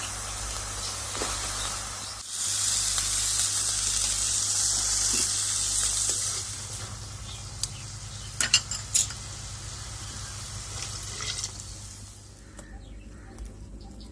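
Food frying in hot oil in a pan: a steady sizzle that swells louder for about four seconds a couple of seconds in, then settles. A few sharp clinks of a utensil against the pan come in the middle, and the sizzle fades near the end.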